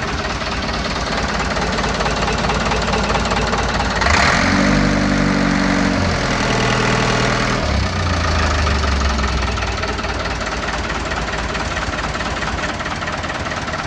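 A 1995 truck's engine running with a steady clatter, growing louder for a few seconds about four seconds in as a pitched hum steps down in pitch, then settling back.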